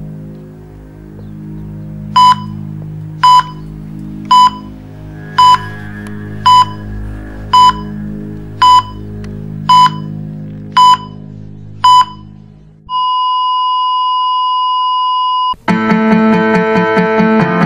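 Loud electronic beeps of one pitch, about one a second, ten in all over a low sustained musical drone, like a heart monitor. Then the drone stops and one unbroken tone of the same pitch holds for about two and a half seconds, a flatline. Near the end, strummed guitar music starts.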